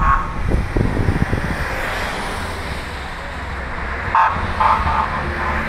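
Race convoy cars driving past on a town street, their engine and tyre noise swelling and fading. Wind buffets the microphone near the start, and several short high toots sound about four to five seconds in.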